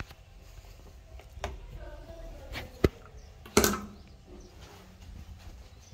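Handling noise: a few scattered knocks and clicks, a sharp click near the middle and the loudest knock a little later, over low room noise.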